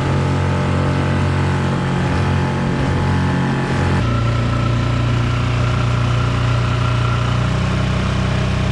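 An engine running steadily at an even pitch. About four seconds in, the note changes abruptly to a slightly different steady pitch.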